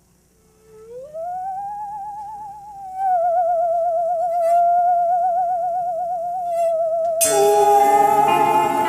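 A single eerie wavering tone slides up about a second in and holds with a wide vibrato. About seven seconds in, the band strikes a loud chord that rings on under it.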